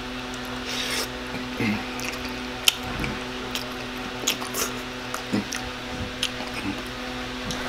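Close-up wet mouth sounds of a person slurping and chewing a mouthful of saucy spaghetti, with scattered short smacks and clicks and one sharp click a little under 3 seconds in.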